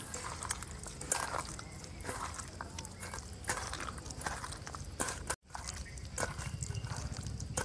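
A hand mashing and mixing roasted eggplant bharta in a steel bowl: soft wet squelching with small irregular clicks. The sound cuts out for an instant about five seconds in.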